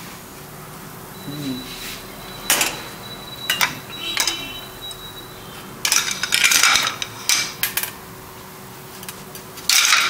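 Metal cutlery clinking and scraping against a dish in a few short, sharp strokes, busiest about six to seven seconds in, while baked chicken is cut into to check whether it is done.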